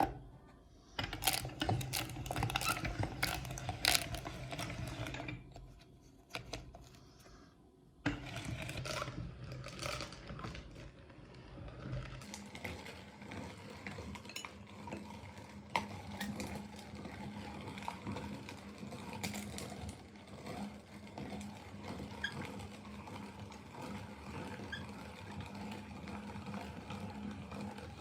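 Meat grinder running with a steady motor hum and clicking and clattering as Oreo ice cream is fed through and ground. It comes in two louder spells in the first twelve seconds, then settles into a steadier, quieter hum with scattered clicks.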